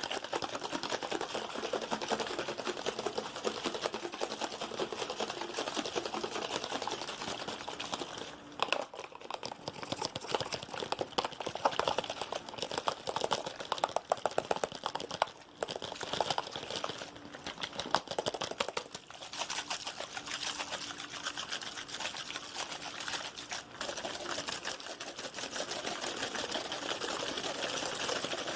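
Fast, aggressive tapping in dense runs of rapid clicks, over trickling water.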